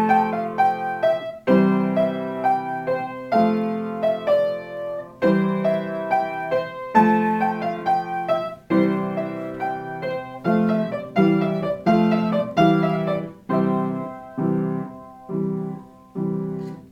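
Piano played as an instrumental passage between sung verses: struck chords with a melody line over them. Toward the end it settles into one chord repeated at an even pace.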